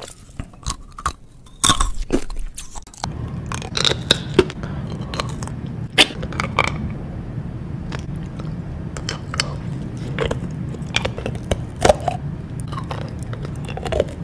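Rock candy on sticks being bitten and chewed close to the microphone: sharp crunches and crackles of the sugar crystals breaking between the teeth. From about three seconds in, a steady low hum runs underneath.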